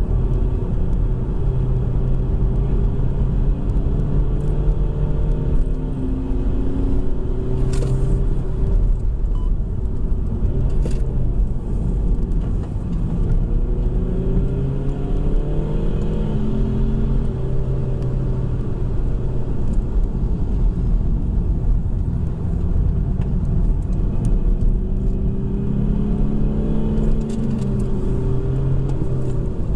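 BMW 120d's four-cylinder turbodiesel under hard track driving, heard from inside the cabin: the engine note climbs under acceleration and drops away several times as the car slows for corners, over a constant low road and tyre rumble. A couple of brief clicks come around a quarter and a third of the way in.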